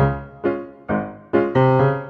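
Background piano music: notes or chords struck at a steady pace of about two a second, each fading before the next.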